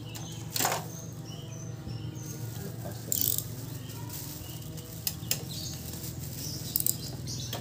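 Portable gas stove and its packing being handled: a few short rustles and knocks as the metal case is set down and wrapped parts are pulled out, the loudest about a second in and again about three seconds in. Birds chirp and a low steady hum runs underneath.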